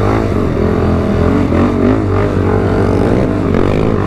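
ATV engine running under the rider, its pitch rising and falling as the throttle is worked.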